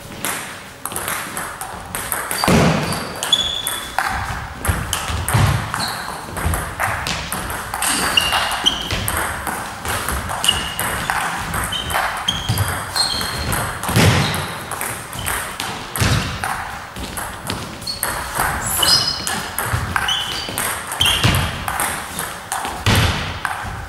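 Table tennis rally: the ball clicking back and forth off the bats and the table many times in a steady rhythm, with short high squeaks of shoes on the sports-hall floor between hits.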